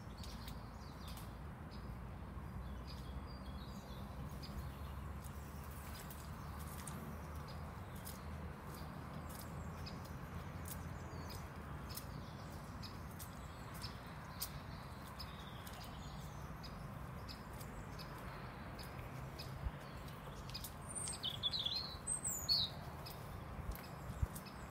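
Outdoor ambience: a steady low wind rumble with scattered faint clicks, and a small bird chirping a few quick high notes near the end.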